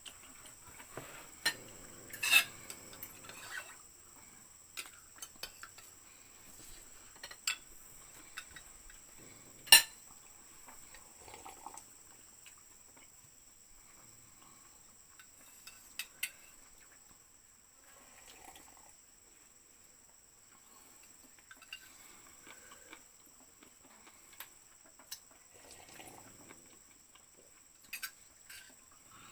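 Cutlery clinking and scraping against plates and dishes during a meal, in scattered sharp clinks with the loudest about two and ten seconds in, over a steady high-pitched hum.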